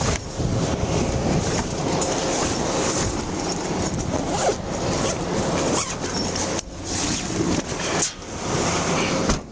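Fabric gear bags being rummaged through and pulled about in a police SUV's cargo area: a steady rustling with short scrapes, as the bags rub close to the body-worn microphone.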